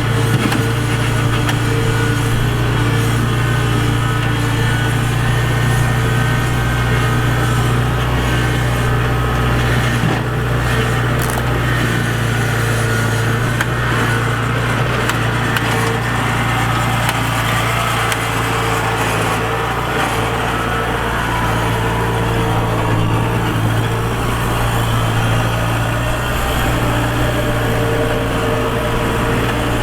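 Kubota DC-70 Plus combine harvester running steadily, its engine giving a constant loud hum with a steady higher drone over a mechanical din.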